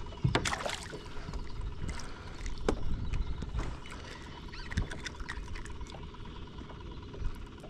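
Water splashing and trickling as a hooked mangrove snapper is lifted out of the water, with a few sharp clicks and knocks.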